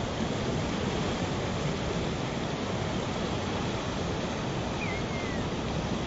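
Mountain river rushing steadily over shallow rapids. A single short bird chirp, rising then falling, sounds about five seconds in.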